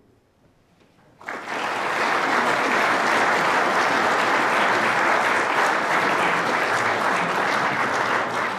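Audience applauding, starting suddenly about a second in after a brief hush and holding steady, beginning to die down near the end.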